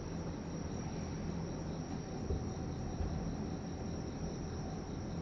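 Night insects trilling, a steady high-pitched trill over a low background rumble.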